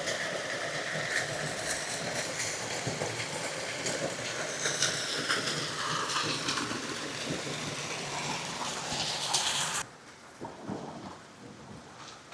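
Cascading water at a hot-spring waterfall: a loud steady rush with small splashes through it, which cuts off abruptly near the end, leaving a much quieter outdoor background.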